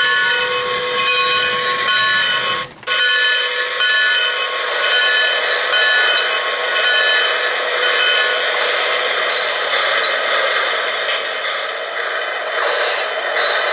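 O-gauge model steam locomotive's onboard sound system giving a repeating signal tone that sounds over and over for about eight seconds and then fades. Under it runs the steady noise of the model train running on three-rail track.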